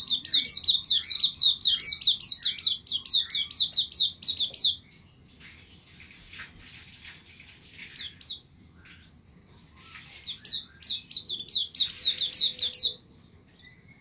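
White-eye (pleci) singing. It gives two runs of rapid, repeated high notes, about five a second, each note dropping in pitch. The first run lasts about five seconds, softer twittering follows, and a second run starts about ten seconds in.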